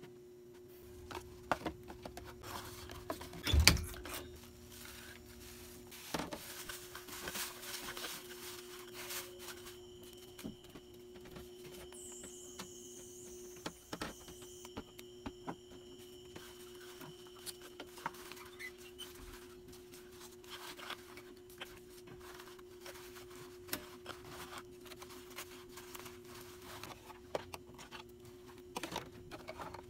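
Items being handled and packed by hand: scattered clicks, taps and rustles, with one loud thump about three and a half seconds in, over a steady low hum.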